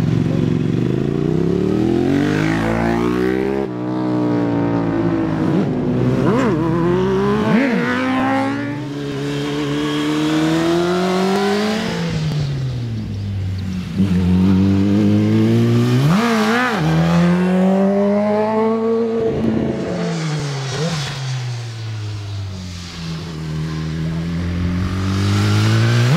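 Sport motorcycle engines revving hard through the gears on a fast hill climb. The pitch climbs with each gear, then falls back as the rider shuts off for the bends, pass after pass.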